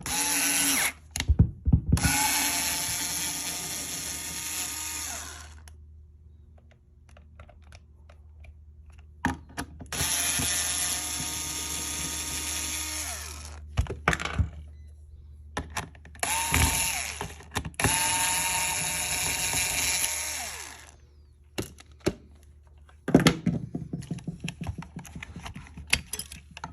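Cordless power screwdriver running in four separate runs, the longest about five seconds, backing out screws. A quick series of clicks and rattles near the end.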